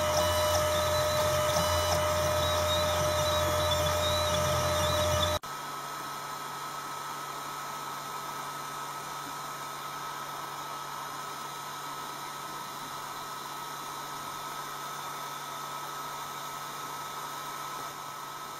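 Desktop CNC engraving machine running, with a steady motor whine and a low hum, which cuts off abruptly about five seconds in. A steady hiss with a faint high whine is left.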